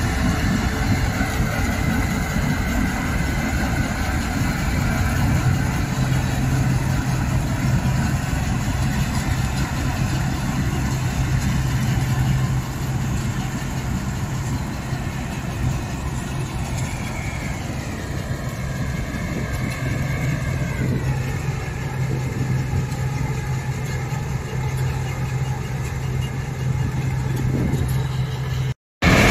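CLAAS Dominator combine harvester running under load while cutting and threshing sunflowers, a steady engine and machinery hum. A whine falls in pitch about two-thirds of the way through.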